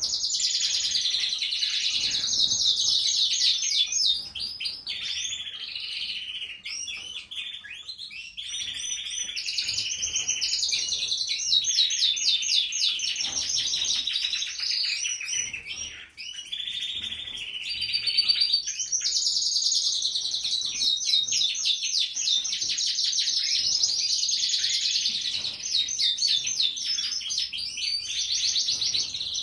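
Domestic canary song: long runs of fast, rolling trills and chirps, with short breaks between phrases.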